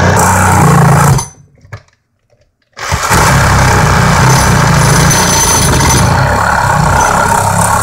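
Makita DJR183 cordless one-handed reciprocating saw cutting through thick wood with embedded nails and drywall screws, working hard and bogging down as the nails grab the blade. The sound stops after about a second, then starts again near three seconds and runs on.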